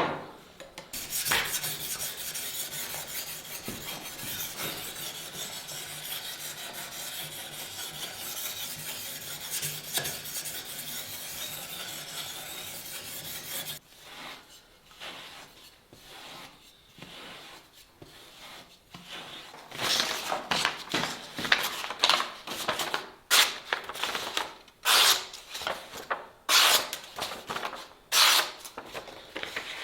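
Abrasive rasping and rubbing strokes on the knife being finished. A fast continuous run lasts about the first half; after that come slower, separate strokes that grow louder in the last third.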